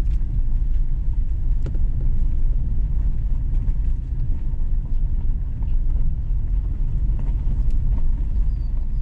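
Vehicle driving slowly on a dirt road, heard from inside the cab: a steady low rumble of engine and tyres, with occasional small knocks and ticks from bumps in the track.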